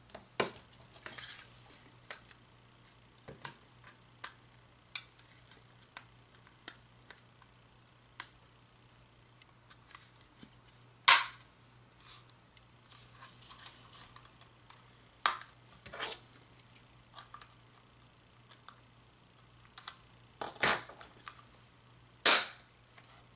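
Hard plastic parts of a cordless phone handset clicking, knocking and scraping as they are handled and fitted back together, with irregular light clicks and a few much louder sharp clicks or snaps, the loudest about halfway through and near the end.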